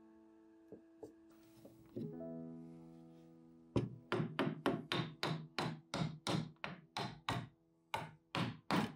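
Background music with held notes slowly fading, then about four seconds in a run of rapid, evenly spaced sharp knocks, about three a second, with a brief pause near the end.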